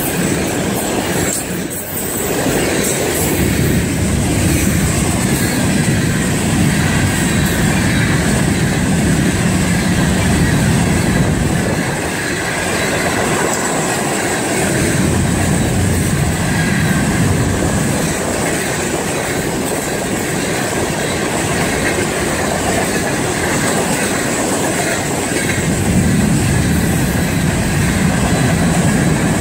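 Freight train of autorack and hopper cars rolling past at close range: a steady rumble of steel wheels on rail, clickety-clack over the rail joints, and a steady high-pitched wheel squeal.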